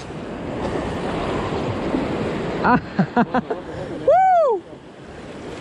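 Sea surf washing against concrete breakwater blocks, a steady rushing with wind on the microphone.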